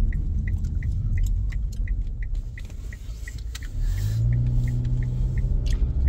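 Car cabin with a steady road and engine rumble and a turn signal ticking about three times a second. About four seconds in, the engine note rises and holds as the car pulls away through the turn.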